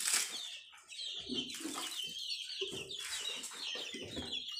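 Chickens clucking, with short high chirps repeating, and a brief rustle near the start.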